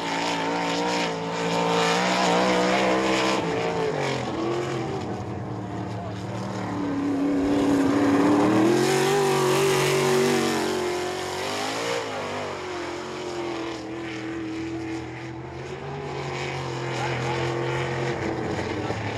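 Winged sprint car's Gaerte-built V8 engine running hard around a dirt oval. The engine pitch drops twice, about four and twelve seconds in, as it backs off for the turns, then climbs again. It is loudest in the middle as the car passes close.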